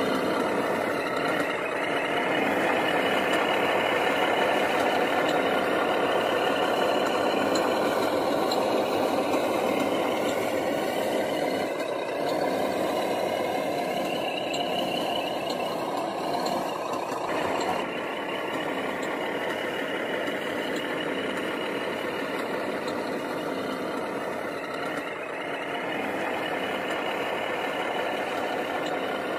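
Radio-controlled model Mercedes-Benz log truck driving over rough dirt under a load of logs, its motor and drivetrain running steadily with a whine that wavers in pitch as the throttle changes.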